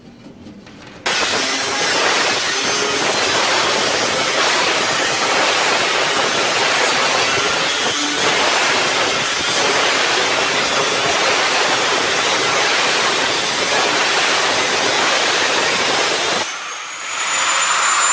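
Angle grinder with a thin cutoff wheel cutting through old rusted, galvanized corrugated steel roofing: a loud, harsh grinding noise that starts suddenly about a second in and holds steady. Near the end it breaks off briefly, then resumes.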